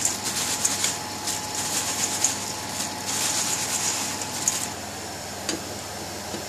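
Fried chips being tossed in a paper-towel-lined stainless steel colander and patted dry, the paper towel rustling and crinkling in uneven bursts. The rustling stops about four and a half seconds in, leaving a steady background hum.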